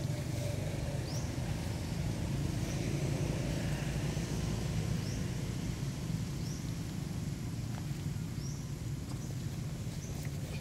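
Outdoor ambience: a steady low rumble, with short high rising chirps repeating every second or two.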